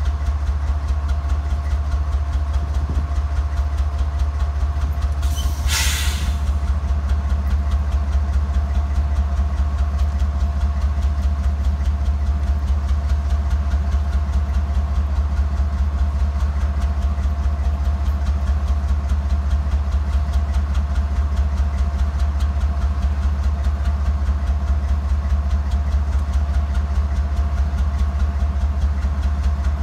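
Norfolk Southern diesel locomotive idling steadily, a constant low drone with a thin steady whine over it. About five to six seconds in comes one short hiss of air.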